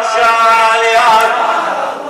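A man's voice chanting a Shia Muharram lament, holding long steady notes, then easing off near the end.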